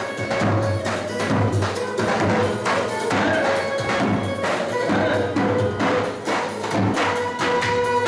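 Folk dance music: a davul, the large double-headed bass drum, beaten in a dance rhythm under a held melody line.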